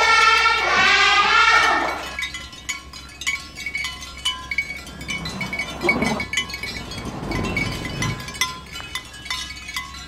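Children's voices reciting a lesson together, loud, which cut off suddenly after about two seconds. Light instrumental music with short chiming notes follows.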